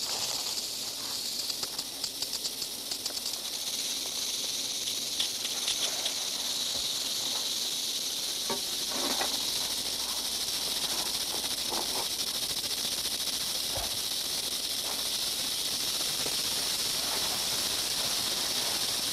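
Western diamondback rattlesnakes rattling: a steady, high, dry buzz, the warning of snakes irritated at being disturbed. A few faint knocks sound now and then beneath it.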